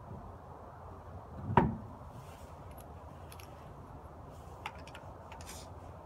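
Lug wrench working the wheel nuts on a car wheel: a few faint metallic clicks, with one loud thump about a second and a half in.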